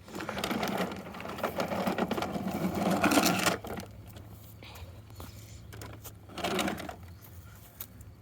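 Plastic toy garbage truck's mechanism rattling and whirring as it is worked by hand, with many small clicks. One long spell lasts about three and a half seconds, and a short one follows a few seconds later.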